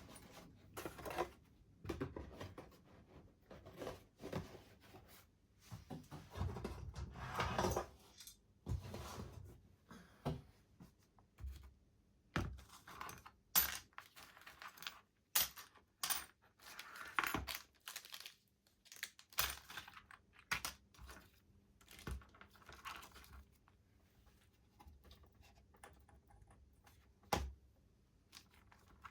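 Small metal parts and tools of a model locomotive being handled on a workbench: irregular clicks and taps, with stretches of scraping and rustling in the first several seconds, then mostly single sharp clicks.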